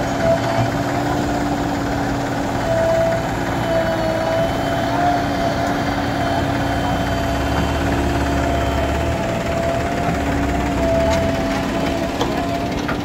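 Diesel engines running steadily: a Mahindra 265 DI XP Plus tractor idling close by and a JCB backhoe loader running alongside, with a steady tone held over the engine noise.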